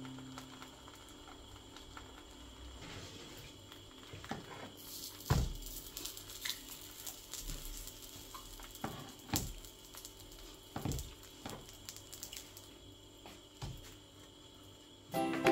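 Quiet frying in a pan of egg and bread, with a faint sizzle and a spatula knocking and scraping against the pan several times, the loudest knock about five seconds in. Music comes in at the very end.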